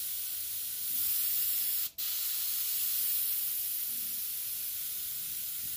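Airbrush spraying a long, slow dagger stroke: a steady hiss of air and paint that breaks off for an instant about two seconds in, then resumes.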